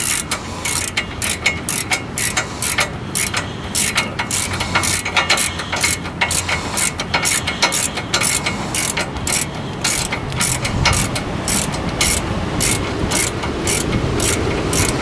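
Hand ratchet wrench clicking steadily, about two or three clicks a second, as a bolt on the front brake assembly is run in during reassembly.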